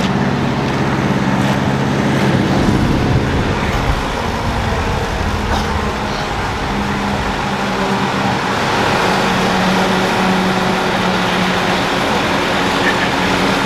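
Engine of the vehicle pulling a hayride wagon, running steadily at low speed under the rumble and rattle of the moving ride.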